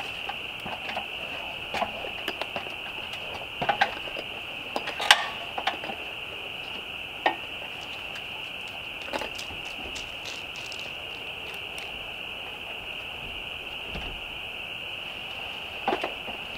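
Scattered knocks and clunks as a window unit is lifted and set into its wall opening from a stepladder, thickest in the first six seconds with the loudest about five seconds in, and a few more later. Under them a steady high insect chorus keeps going.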